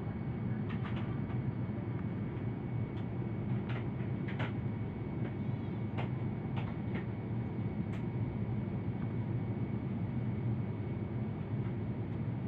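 Steady cabin noise of a jet airliner in flight: engine and airflow drone, low and even, with a few faint short clicks in the middle.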